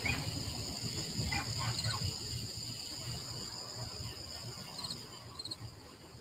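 A chorus of night insects trilling: two steady high trills, with short chirps now and then, over a low rumble.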